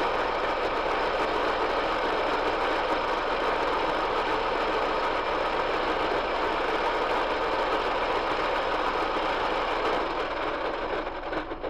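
Metal-turning lathe running with a steady mechanical whir, then spinning down and fading near the end.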